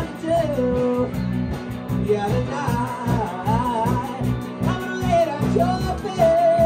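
Live rock band playing: a lead singer sings a wavering melody over electric guitar, bass and a drum kit keeping an even beat.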